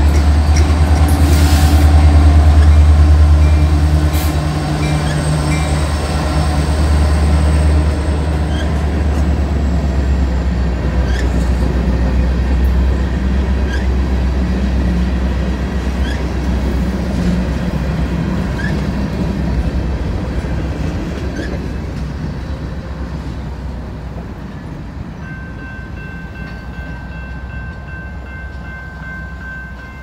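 Freight train passing close by: the diesel engine of an EMD GP60 locomotive running in the middle of the train, loudest in the first few seconds. Boxcars and covered hopper cars follow, rolling over the rails with occasional wheel clicks and fading gradually toward the end.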